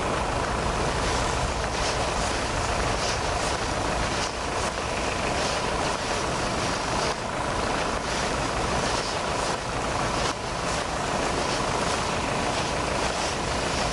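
A steady engine rumble, like an engine idling, with a faint steady hum running through it.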